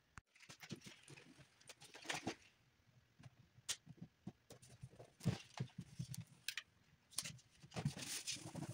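Irregular rustling, rubbing and soft clicks of paper application tape being laid and smoothed by hand over a painted snowmobile hood.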